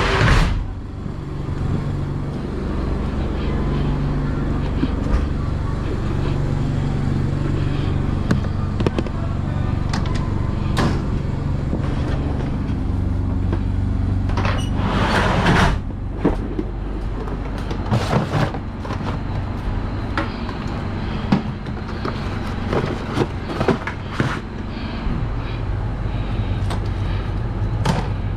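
A motor hums steadily under scattered knocks and rattles, with a loud rushing burst about fifteen seconds in.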